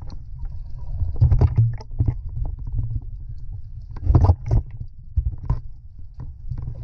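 Muffled underwater sound picked up by a submerged camera: a low, steady rumble of water moving around it, with irregular knocks and bubbly crackles, most of them about a second in and again about four seconds in.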